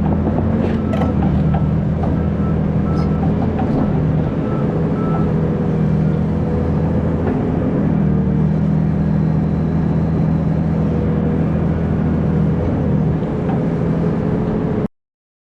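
Hydraulic excavator's diesel engine running steadily at working revs, its note dipping briefly a couple of times; the sound cuts off abruptly near the end.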